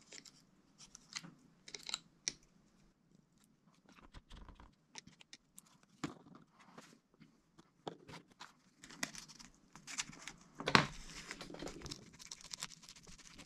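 Small clicks and taps of plastic tools on a MacBook Pro's aluminium case and battery, then a louder scraping, crackling stretch from about eleven seconds in as a plastic opening card is worked under the glued-down battery cell, loosening its adhesive.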